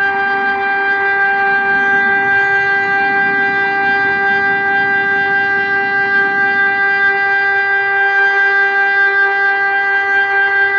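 ELMIK NERO 600 four-horn electronic siren sounding one steady, unwavering tone rich in overtones: the continuous test tone of the Czech monthly siren test.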